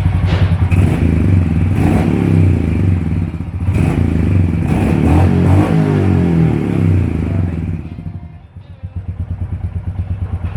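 Royal Enfield Hunter 350's single-cylinder engine running loud and blipped up and down a few times. Near the end it drops back and settles into a steady, even idle.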